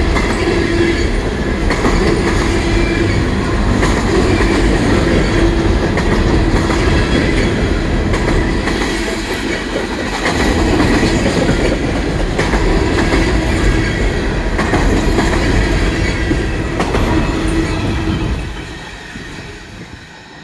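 A CSX freight train of empty municipal waste container cars rolling past: a continuous wheel-on-rail rumble with scattered clacks of wheels over rail joints and a steady humming tone above it. About 18 s in the sound drops away as the end of the train passes and recedes.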